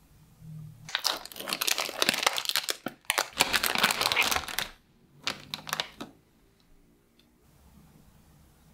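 Plastic packaging film of a microwave burger being pulled off and crumpled. There is a long spell of crinkling lasting about four seconds, then a shorter burst about five seconds in.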